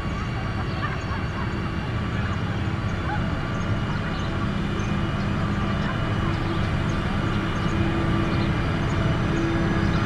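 SANY motor grader's diesel engine running steadily under load as its blade pushes gravel, growing slightly louder as the machine comes closer.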